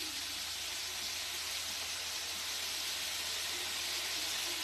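Steady sizzle of sauce ingredients frying in a hot pan.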